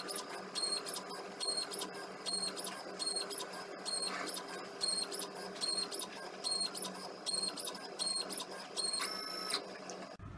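Stepper motors of a DIY CNC machine with an auger-pump dispenser head running a job: short high-pitched stepper whines repeat in regular quick moves over a steady hum, with one longer whine near the end. The sound cuts off abruptly just before the end.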